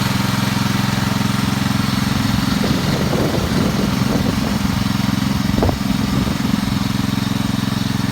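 Wheel Horse garden tractor engine running steadily while ploughing; for a few seconds in the middle its note wavers unevenly before settling again.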